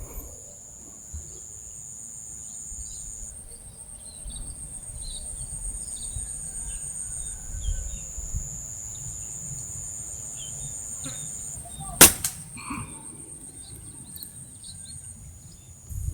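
A single air rifle shot, one sharp crack about twelve seconds in. Behind it are steady high-pitched insect buzzing and scattered small bird chirps.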